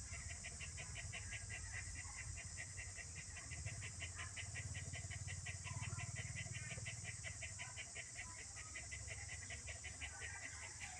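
A steady, rapid chirping of even pulses, about six a second, over a low rumble and a constant hiss.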